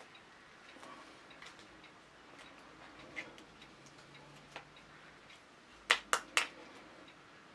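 Pliers working wire on a hand-carved wooden fishing lure: faint scattered metal ticks, then three sharp clicks in quick succession about six seconds in.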